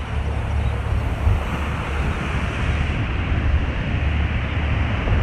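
Wind buffeting the microphone with a steady rumble, over waves breaking on a sandy beach.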